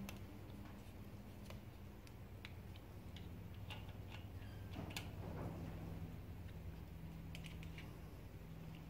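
Light scattered clicks and taps of small metal parts and a gasket being handled and fitted against the front of a small-block Chevy 350 engine block, with a brief scraping rustle about five seconds in, over a faint steady hum.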